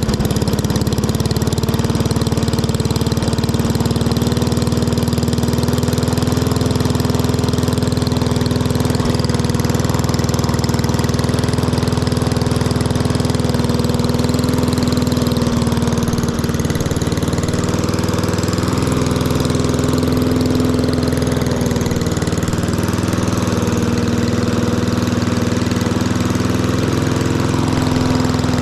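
Lawn mower engine running steadily through an aftermarket muffler, its speed wavering slightly a little past halfway through.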